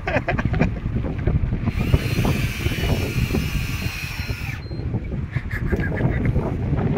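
Heavy game-fishing reel whirring for about three seconds in the middle, as line moves under strain from a big fish. Wind on the microphone and sea noise run underneath, with a few clicks near the start.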